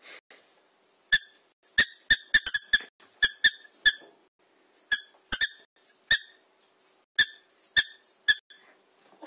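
Squeaky toy ball squeezed by hand again and again, giving short, sharp squeaks of the same pitch each time, with a quick run of them about two to four seconds in.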